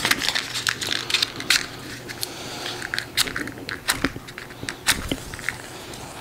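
Small clicks and scrapes of a matchbox being handled and a wooden match taken out, then the match struck against the box and flaring alight near the end.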